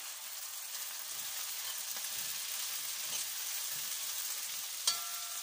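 Soy chunks and onions sizzling steadily in a hot wok over a high gas flame. Near the end there is a single sharp knock with a short ringing tone.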